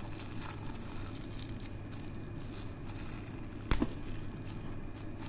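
Faint crinkling and rustling of a small plastic packet being handled and opened by hand, with one sharp click about three and a half seconds in.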